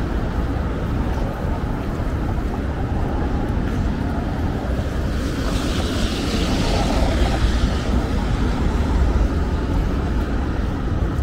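Street traffic noise: a steady low rumble, with a passing vehicle's tyre hiss swelling about five seconds in and fading a few seconds later.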